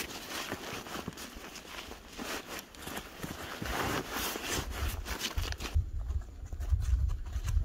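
Nylon backpack fabric and gear rustling and crunching as the pack is stuffed and closed in the snow. About five seconds in this gives way to a low rumble.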